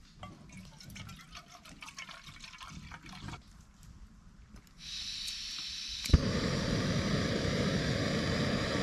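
A few faint clinks of camping cookware, then a gas camping stove being lit: a steady hiss of gas starts about halfway through, a sharp igniter click follows a second later, and the burner then runs with a louder, even rushing sound.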